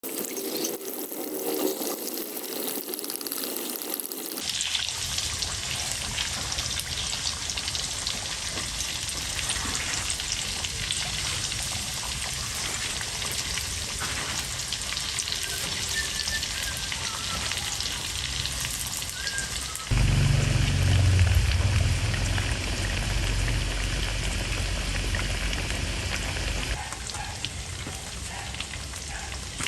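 Food frying in a pan: a steady sizzling hiss, changing abruptly a few times. From about twenty seconds in, a louder low rumble runs under it for several seconds.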